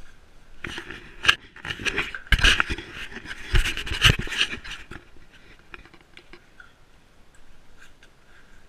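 Action camera being jostled, rubbing and scraping against a jacket with several dull knocks, the loudest between about two and four seconds in. Quieter scattered ticks follow.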